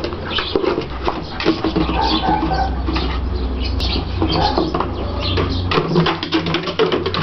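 A light plastic container knocking and scraping over concrete paving stones as a small dog shoves it around with its head, making many quick irregular knocks.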